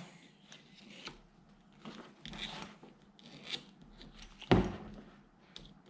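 Fine steel brush scratching carbon deposits out of a BMW N52 piston's ring groove in short, intermittent scrapes, with one sharper knock about four and a half seconds in.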